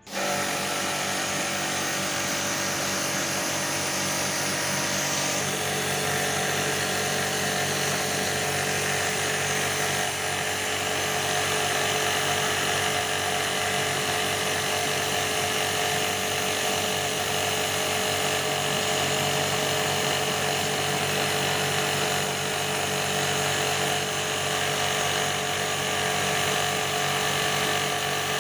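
Electric AC-servicing jet pump (pressure washer) motor running steadily with spray hiss. It starts suddenly, and its tone shifts slightly about five seconds in.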